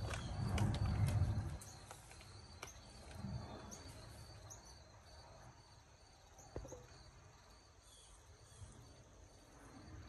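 A low rumble on the microphone for about the first second and a half. Then a quiet outdoor background with faint high chirps repeating every half second or so, and one sharp click in the middle.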